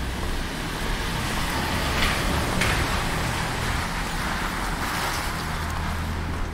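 A car passing on a wet street: a hiss that builds for a couple of seconds and then eases off, over a steady low rumble.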